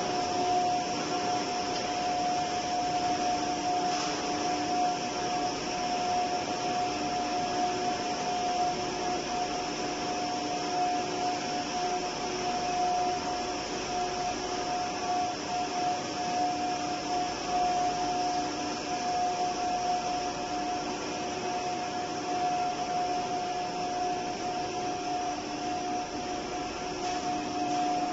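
PE315 plastic pipe extrusion line running: a steady machinery hum and hiss with one constant whining tone.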